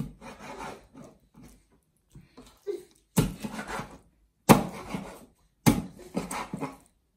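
Heavy knife chopping raw chicken on a wooden cutting board: a chop at the start, a few lighter knocks, then three hard chops about a second and a quarter apart in the second half.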